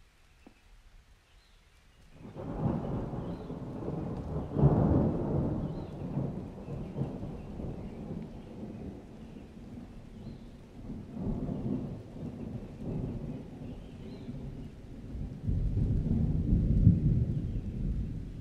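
A deep rumbling noise that starts about two seconds in and keeps swelling and fading, loudest at about four to five seconds and again near the end, in the manner of rolling thunder.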